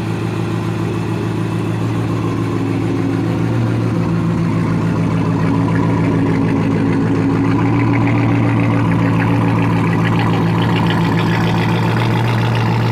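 ProCharger-supercharged Corvette Z06 V8 idling steadily through its quad exhausts after a cold start. It gets slightly louder about four to six seconds in.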